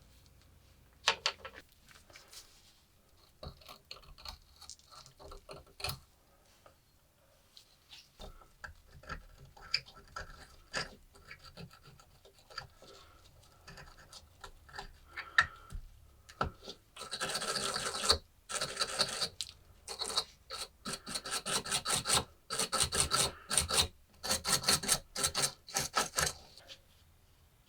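Hand scraping and rubbing on the metal of an old rusty lighter, typical of rust removal. Light, scattered scratches at first, then from about two-thirds of the way in a long run of loud, fast back-and-forth scrubbing strokes that stops shortly before the end.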